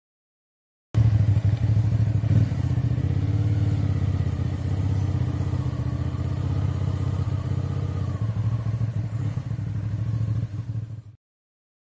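Motorcycle engine of a Yamaha XTZ125, a single-cylinder four-stroke, running steadily close by. It cuts in abruptly about a second in and cuts off just as suddenly near the end.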